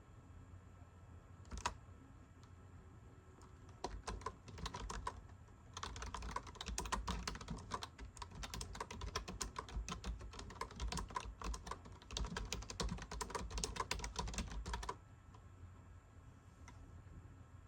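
Typing on a computer keyboard. A lone keystroke comes first, then a few scattered keys, then about nine seconds of fast, continuous typing that stops abruptly.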